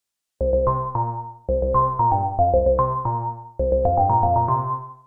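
Cherry Audio DCO-106 software synthesizer, an emulation of the Roland Juno-106 analog poly synth, playing a patch dry with no effects. Three short phrases of quick melody notes sound over a held bass note, starting about half a second in.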